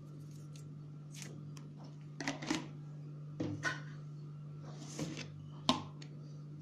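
Light clicks and taps of kitchen utensils being handled while spices are measured into a bowl of marinating fish, over a steady low hum.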